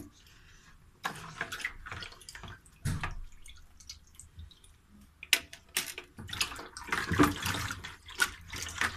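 Hands washing raw rabbit meat in a basin of water: irregular splashing, sloshing and dripping, sparse at first and busiest in the second half.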